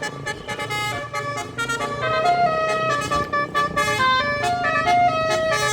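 Bus basuri air horn playing a tune of short and held notes, several horn tones sounding at once, louder from about two seconds in.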